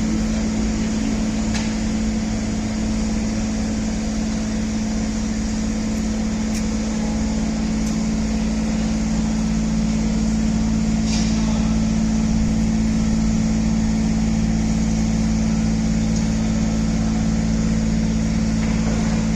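Construction cradle's electric hoist machinery running with a steady, even hum, with a few faint ticks.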